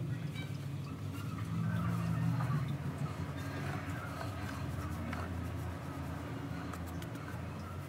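Hands rubbing butter into flour in a glazed clay dish, with soft, irregular rustling and scraping of fingers through the crumbly dough and against the dish. A steady low hum runs underneath.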